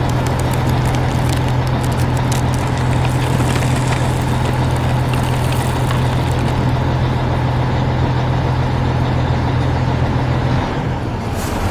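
Heavy construction vehicle's engine running with a steady low hum. The hum cuts out about ten and a half seconds in.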